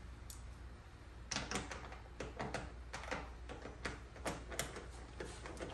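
Irregular clicks and small knocks from hand-tool work on the plastic engine airbox housing as its fasteners are undone, starting about a second in at roughly two or three a second.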